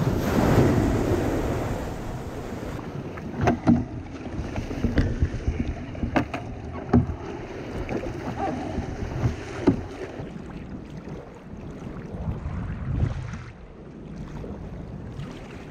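Sea water slapping and splashing around a fishing kayak, with wind buffeting the microphone. Several sharp splashes or knocks come at uneven intervals through the middle.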